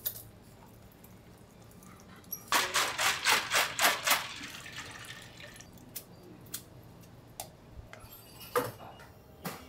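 Boiled soba noodles being drained in a handled mesh strainer over boiling water: a quick run of rhythmic splashing shakes, about five a second, for under two seconds about two and a half seconds in. A few single clinks follow, the loudest two near the end.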